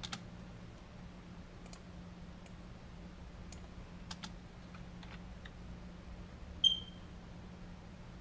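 Scattered clicks of a computer keyboard and mouse over a low steady hum, with one short high-pitched beep near the end.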